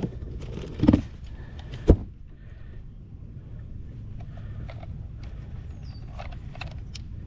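Handling noise on a bass boat: two sharp knocks about one and two seconds in as the fishing scale is fetched, then light clicks and rattles of the digital hanging scale and its clip while a smallmouth bass is weighed, over a low steady rumble.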